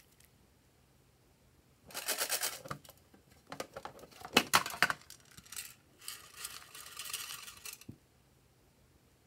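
Small plastic confetti sprinkles rattling as they are shaken out of a round box into a bowl of clear slime, in two runs of about a second or two each. Between the runs come sharp clicks as the box is handled.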